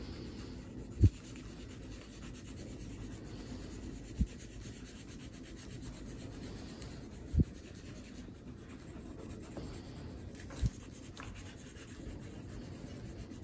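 Wax crayons rubbing on drawing paper as two people color in a sky with back-and-forth strokes, a soft steady scratching. Four short dull thumps fall about three seconds apart.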